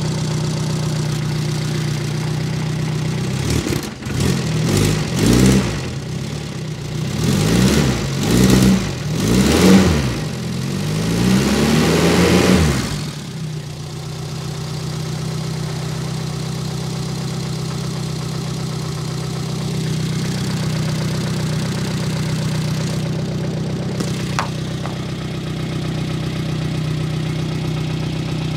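1964 Renault Dauphine Gordini's small four-cylinder rear engine running after standing for months, cold and damp. It idles, is revved up and down four or five times in quick succession from a few seconds in to about halfway, then settles back to a steady idle.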